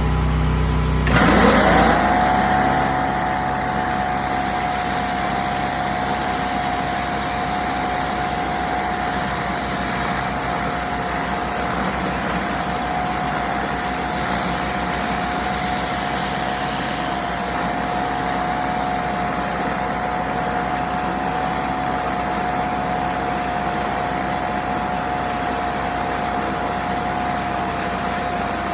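Pressure washer running at full spray. About a second in, the water jet starts with a hiss and a whine that rises quickly, then both hold steady.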